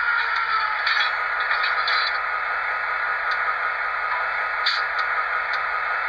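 Sound-decoder F40PH sound effects from an HO-scale model's small speaker: a steady rushing running sound with several short metallic clanks scattered through it, the decoder's coupler-clank effect.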